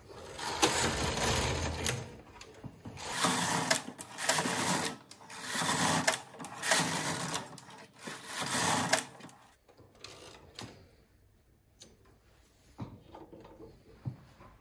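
Carriage of a Silver Reed SK840 knitting machine with SRP60N ribber pushed back and forth across the needle beds, knitting rows of rib. There are about five passes of a second or so each, then only faint clicks in the last few seconds.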